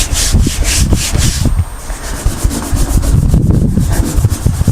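A hand rubbing back and forth over a freshly applied vinyl decal to press it down, in quick strokes about three a second, stopping after a second or so and giving way to low bumps and handling noise.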